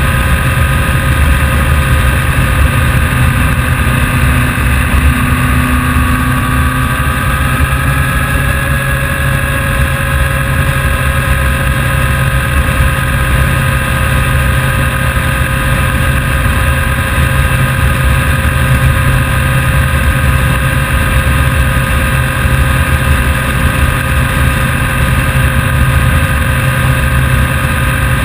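Vehicle engine running steadily, loud and unbroken, with its pitch shifting slightly about eight seconds in.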